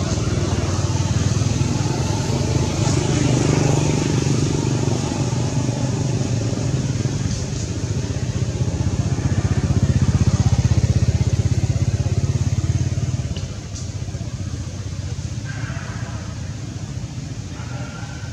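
A motor vehicle engine running steadily with a low, pulsing hum. It grows louder about ten seconds in, then drops away sharply a few seconds later.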